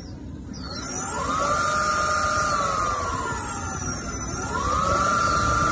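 Electric scooter's rear hub motor spinning the wheel on a test run: a whine that rises in pitch as it speeds up, holds, and falls away as it slows, then rises again, over a thin steady high-pitched tone.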